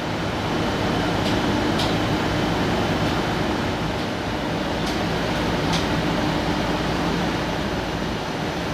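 Steady running noise of a train, an even rumble with a low hum and a few faint, short clicks.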